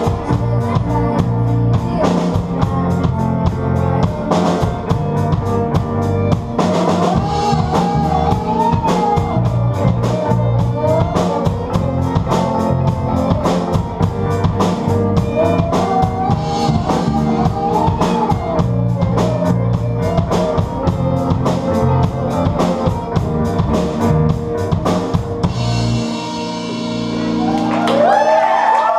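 Live rock band playing: drum kit, bass guitar and keyboards under a wavering lead melody. About 26 seconds in the drums stop and the band ends the song on a held, ringing chord.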